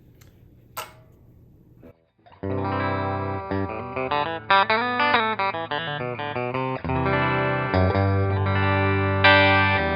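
Fesley ST Strat-style electric guitar through an amplifier: a low amp hum and a single click, then about two and a half seconds in a lead phrase with string bends, followed by ringing chords.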